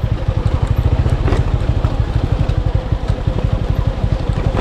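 Motorcycle engine running at low speed with a fast, even pulse, with a few sharp knocks from the bike riding over a rough dirt trail.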